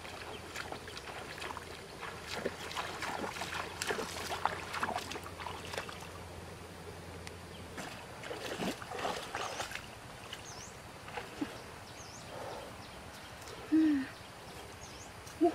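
Water splashing and sloshing in irregular steps as a person wades through a shallow stream. Near the end comes one brief, louder sound with a pitch that bends.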